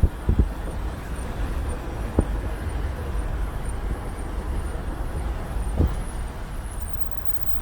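2016 Toyota 4Runner rolling slowly over pavement with its brakes making a constant rubbing sound and a faint, high-pitched squeak that repeats in short pulses as the truck slows toward a stop, over steady road and tyre rumble with a few light knocks.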